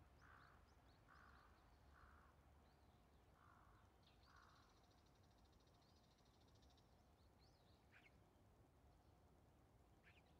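Faint bird calls: a harsh caw repeated about six times over the first four and a half seconds, then a fast, high trill lasting a few seconds, with scattered short chirps.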